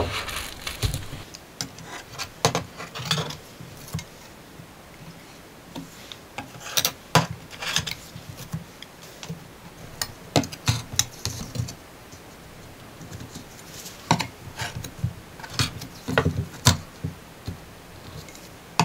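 Scattered taps, clicks and scrapes of a steel ruler and kitchen knife on a silicone baking mat as thin cookie dough is cut into squares. They come in small clusters with quiet gaps between.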